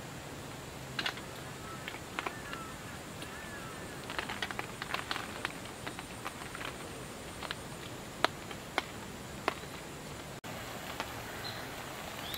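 Irregular small sharp clicks and taps, bunched most thickly in the middle, with a few faint chirps in the first three seconds.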